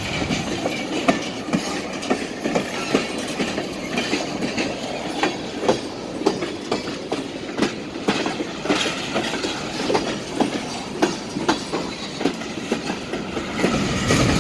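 Freight train cars rolling past, a steady rumble broken by irregular clanks and clicks as the wheels pass over the rail joints.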